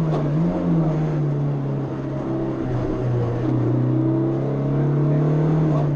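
Suzuki Swift Sport 1.6's four-cylinder engine heard from inside the car, running steadily at moderate revs with a brief dip about two seconds in.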